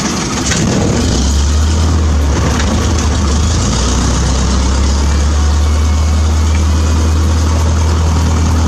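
Cessna 152's Lycoming O-235 four-cylinder engine catching just after start, then settling about a second in into a steady low idle, heard from inside the cabin.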